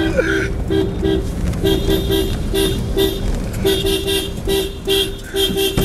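A car horn tooted over and over in short rhythmic blasts, all on the same pitch, over the low rumble of the car driving.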